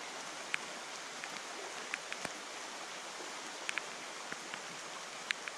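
Steady hiss of rain falling on a flowing creek, with a few faint scattered ticks.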